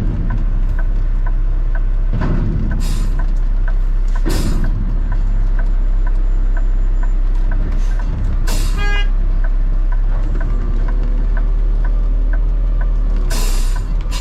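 Heavy diesel truck engine running steadily, with a light regular ticking and four short hisses of air.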